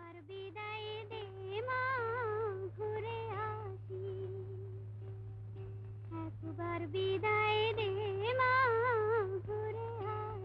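Background music: a single melody line with strong vibrato, sung or played high, in two similar phrases about six seconds apart, over a steady low hum.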